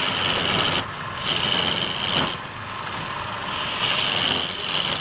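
Steel turning chisel cutting into a spinning wooden cylinder on a wood lathe: a scraping, hissing cut that comes in passes, breaking off briefly twice and loudest near the end.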